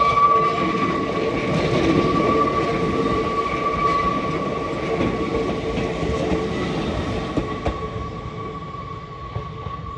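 Hakone Tozan Railway three-car 1000/2000-series electric train running past a level crossing, its rumble fading from about seven seconds in. A steady high-pitched ringing tone runs under it and carries on as the train noise dies away.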